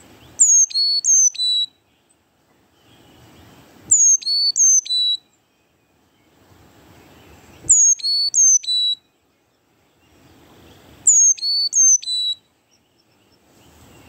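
Carolina chickadee singing its clear whistled four-note song, high and lower notes alternating, repeated four times about every three and a half seconds.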